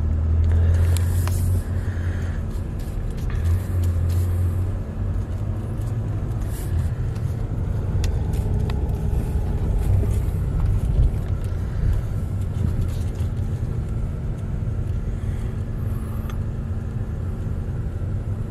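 Car running, heard as a steady low rumble, swelling a little a couple of times in the first few seconds.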